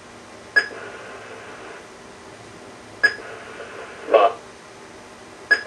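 Cheap Talk 8 speech-output device scanning: three short electronic beeps about two and a half seconds apart as it steps from one message square to the next. Between the last two beeps, a brief clipped recorded word plays from its speaker as the auditory cue for a message.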